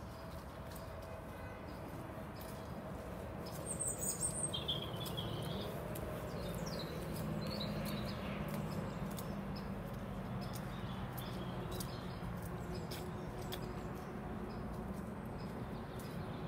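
Wild birds chirping a few short times over a steady outdoor background hum.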